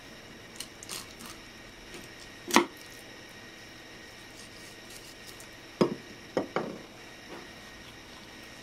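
Kitchen knife and mackerel knocking on a wooden cutting board while the fish is filleted: a few light taps in the first second or so, a sharp knock about two and a half seconds in, and a quick cluster of three knocks around six seconds.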